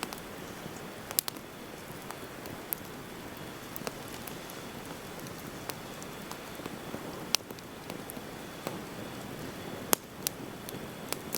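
Campfire burning: a steady hiss of flames with scattered sharp pops and crackles from the burning wood, the loudest snaps about a second in and again near the end.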